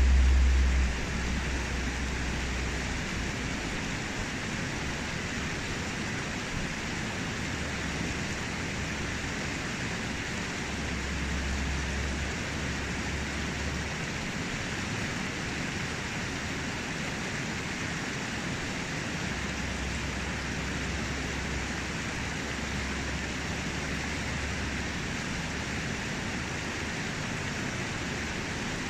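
Fast, shallow river rushing over rocks through a riffle: a steady, even rush of water. A low rumble comes and goes, strongest in the first second and again twice later.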